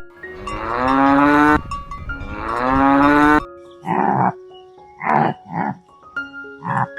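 A cow mooing twice in long calls, followed by four short, rough animal calls, over soft background music.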